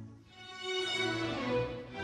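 Instrumental interlude music: a slow melody of held notes, played as the break between the two playings of a listening-comprehension test recording.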